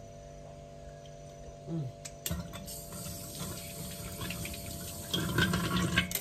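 Kitchen tap turned on about two seconds in, water running into a stainless steel sink as a knife is rinsed under it. The splashing grows louder in the last second, then the water cuts off.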